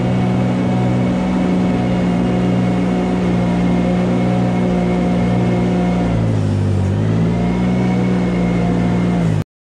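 Engine of a compact loader running steadily while its scraper blade pushes manure along the barn alley; the engine note drops briefly about six seconds in and then comes back up.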